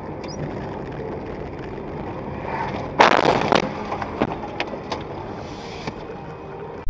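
Steady road and engine noise of a car, then about three seconds in a sudden loud crash of a vehicle collision, followed by a few scattered knocks over the next few seconds.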